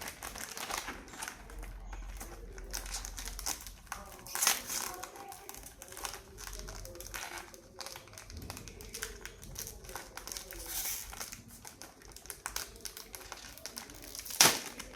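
Chocolate wrappers crinkling and rustling as chocolates are unwrapped and handled. There is an uneven run of crackles, with a sharper crackle about four and a half seconds in and a louder one near the end.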